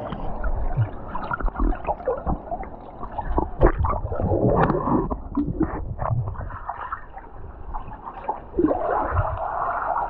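Muffled underwater gurgling and sloshing of water stirred by swimmers, heard through a camera held below the surface, with irregular knocks and thumps throughout.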